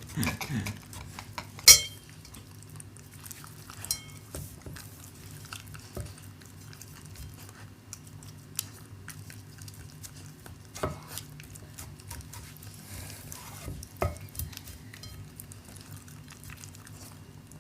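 A Shiba Inu eating from a dish: scattered clicks and clinks of bowl and food, the sharpest about two seconds in and then sparse ones every few seconds, over a low steady hum.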